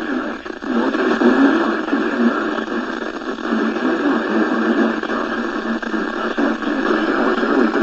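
NOAA Weather Radio broadcast heard off a receiver, with steady static hiss. The automated voice reading the marine forecast is muddied by the noise.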